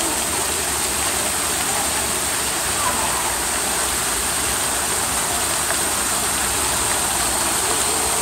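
A steady, even rushing noise that holds at one level throughout, with faint voices in the background.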